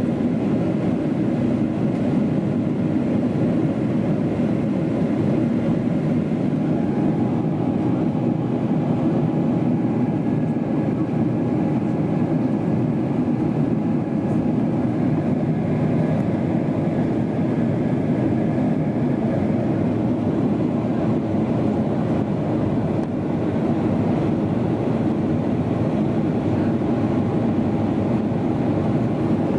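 Steady cabin noise of a Boeing 777-300ER on descent: a low, even roar of airflow and its GE90 turbofan engines, with a faint steady high tone over it.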